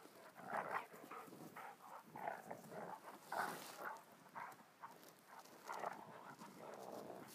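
Two dogs play-fighting, growling and grunting in short, irregular bursts.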